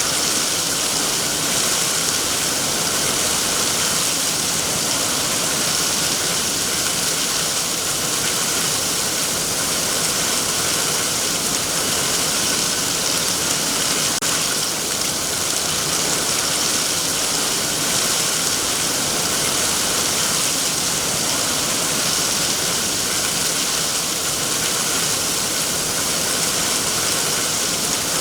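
Heavy rain falling steadily on trees and foliage, a constant even hiss of drops.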